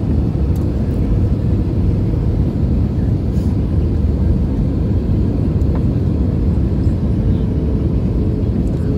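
Steady, loud airliner cabin noise during the landing approach with flaps extended: a deep, even rumble of engines and rushing air, with a faint steady hum above it.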